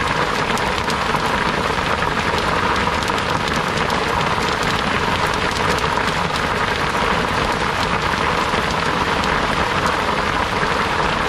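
Heavy rain pouring down steadily: a dense, even hiss with many small drop impacts on nearby surfaces.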